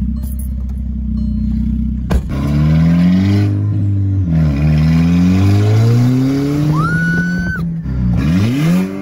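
VW GTI's turbocharged 2.0-litre four-cylinder, straight-piped through a burnt, scraped PVC pipe. It idles steadily for about two seconds, then accelerates hard, the pitch climbing and dropping back at two gear changes. The sound is a freaking growl.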